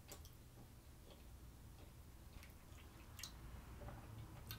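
Faint chewing, with a few soft mouth clicks spread through.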